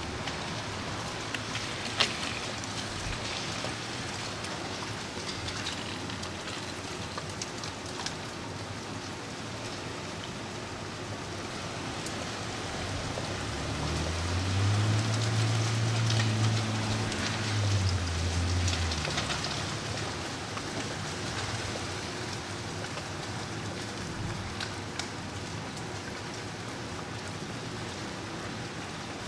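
Freezing rain falling steadily, a hiss with scattered small ticks. About halfway through, a vehicle passes with a low hum that swells and fades over several seconds, the loudest part.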